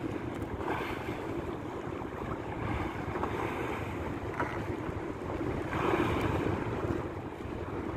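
Wind buffeting the microphone over choppy open-sea water washing against a small boat's hull, with a few louder wave splashes and a steady low hum underneath.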